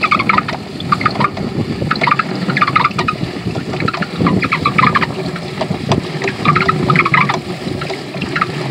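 Hand-cranked chicken plucker spinning two scalded, wetted chickens against its rubber plucking fingers inside a plastic drum: a rhythmic wet slapping and sloshing over a steady watery rush.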